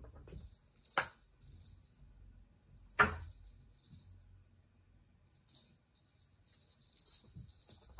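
A small jingle bell jingling in short stretches as cats play with their toys. Two sharp knocks come about one second and three seconds in; the second is the loudest.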